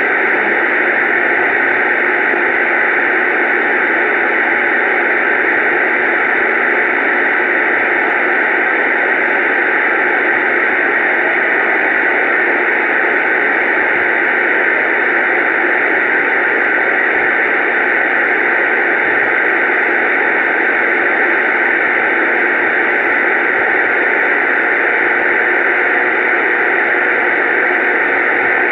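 Steady radio static: a loud, unbroken hiss from an open two-way radio channel, with no voices coming through.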